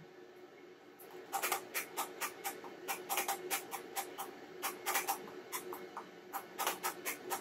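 Computer keyboard keys tapped repeatedly, irregular sharp clicks about three or four a second starting about a second in, over a faint steady hum.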